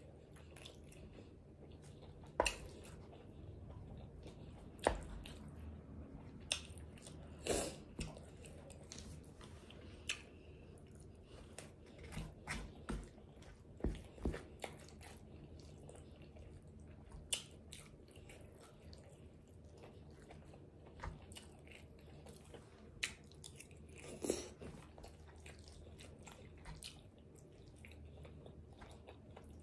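A person chewing a forkful of a Chipotle burrito bowl (rice, sour cream) close to the microphone: faint wet chewing with scattered sharp clicks and smacks every couple of seconds, and a fork touching the bowl.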